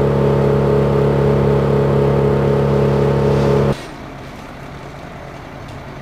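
A machine engine running loud and steady at a constant speed, cutting off abruptly a little under four seconds in. A fainter, steady engine hum follows.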